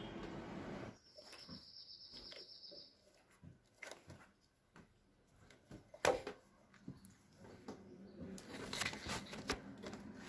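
Scattered faint clicks and taps of hands setting wiring and parts in place, the sharpest about six seconds in. A high, fluttering bird trill runs for a couple of seconds near the start.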